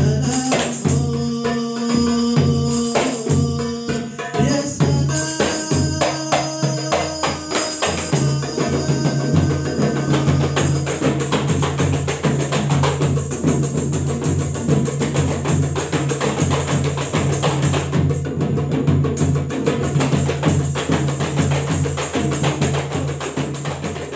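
Marawis ensemble practising the zapin rhythm: small hand-beaten marawis drums and a large rope-tuned drum playing a fast, dense, interlocking pattern.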